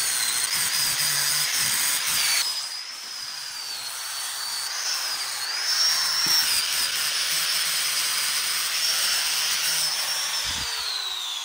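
Electric angle grinder with a flap disc grinding a steel motorcycle frame tube: a steady high motor whine over a rasping grind. Near the end it is switched off and the whine falls in pitch as it spins down.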